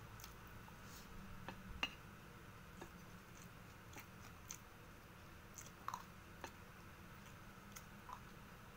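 Faint chewing and mouth sounds of a person eating fried rice, with a dozen or so scattered small clicks from the wooden spoon and the eating, the sharpest about two seconds and six seconds in.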